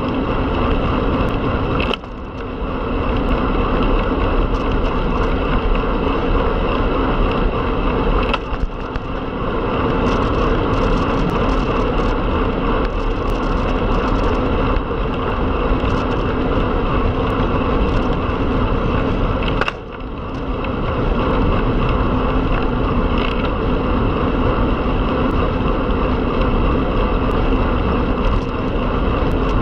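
Steady rush of wind and tyre noise from a road bike ridden at speed, with a few brief dips about two, eight and twenty seconds in.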